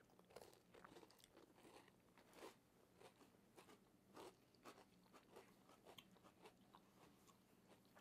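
Faint crunching and chewing of chocolate chip cookies made with crushed potato chips, quiet crisp bites about twice a second.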